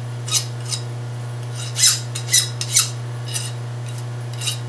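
Hand file scraping across the edge of a freshly milled metal part held in a mill vise: about seven short, uneven strokes. A steady low hum runs underneath.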